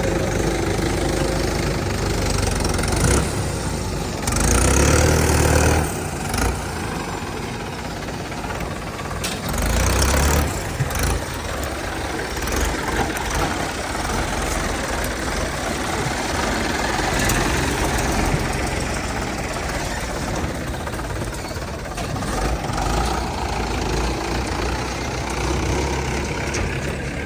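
Diesel engines of a backhoe loader and a tractor running steadily, swelling louder for about two seconds some four seconds in and briefly again about ten seconds in.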